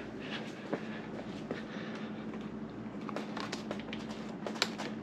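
Faint, scattered small clicks and knocks of hand work on a motorcycle's clutch lever and perch, over a steady low hum.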